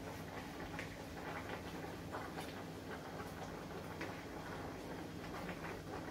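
Soup heating in a large aluminium pot under a heap of chopped ugu leaves, giving faint irregular ticks and pops over a steady low hum.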